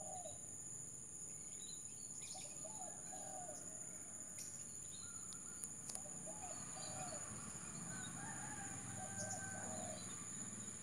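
Zebra dove (perkutut) calling in short phrases of soft staccato cooing notes, repeated every couple of seconds.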